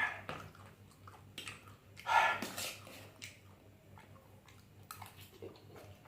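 Close-up eating sounds: chewing and wet mouth noises, with a louder gulp or mouth sound about two seconds in.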